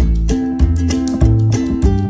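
Background music: plucked guitar or ukulele over a steady beat and bass line.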